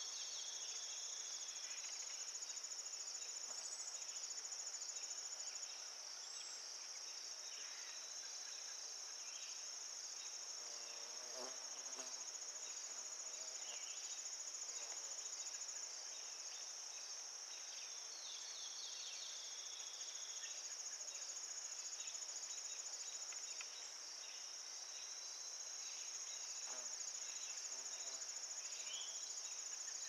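Steady, high-pitched chorus of crickets trilling continuously, with a few faint short chirps now and then.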